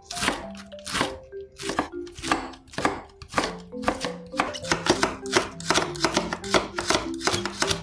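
Chef's knife chopping vegetables on a wooden cutting board: shredding cabbage, then julienning carrot and slicing green onion and onion. The strikes are quick and crisp, quickening to about five a second in the second half, over light background music.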